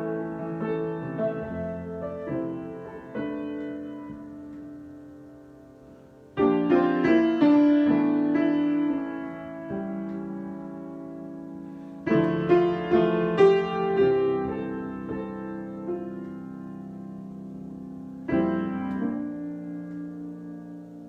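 Solo piano improvisation: slow, rich chords struck and left to ring and fade. Fresh, louder clusters of notes come in about six seconds apart, three times.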